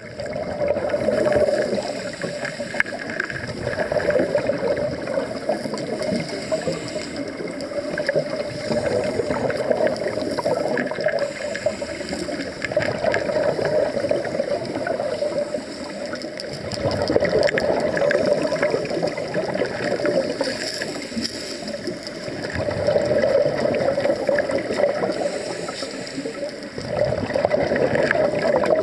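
Scuba regulator exhaust bubbles heard underwater: a rushing, gurgling noise that swells and fades every few seconds with the divers' breathing.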